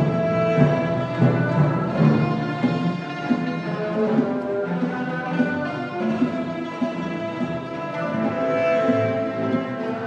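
Chinese orchestra playing a contemporary concert piece: bowed and wind instruments hold sustained notes, with short low percussion strokes under them in the first few seconds.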